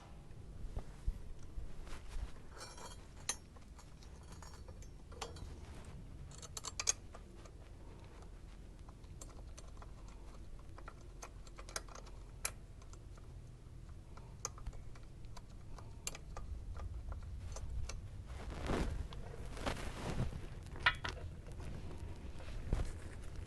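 Scattered light clicks and taps of hands handling and fitting motorcycle parts and hardware, with short rattling clusters about 3 and 7 seconds in. Near the end come a few brief scraping rustles.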